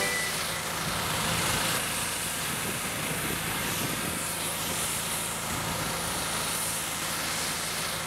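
Engine-driven pressure washer running steadily: a low engine hum under the hiss of the water jet.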